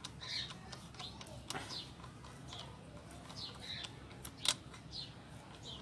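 Small metallic clicks of a screwdriver working the worm screw of a hose clamp wrapped round a piston, used as a ring compressor to squeeze the piston rings, with one sharper click about four and a half seconds in. Small birds chirp faintly in the background.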